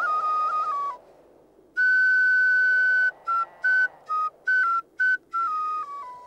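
Shepherd's wooden flute playing a simple melody with a pure, whistle-like tone. A held note with small turns breaks off about a second in. The tune resumes with another held note, then a run of short separate notes that steps down to a lower held note near the end.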